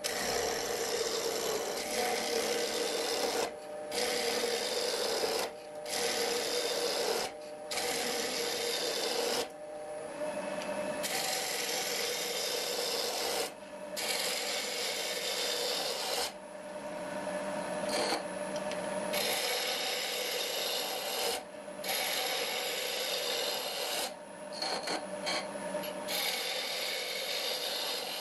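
A turning gouge cutting a spinning wooden spindle on a wood lathe: a continuous scraping, shaving hiss of wood being peeled away. It breaks off briefly every few seconds as the tool comes off the work.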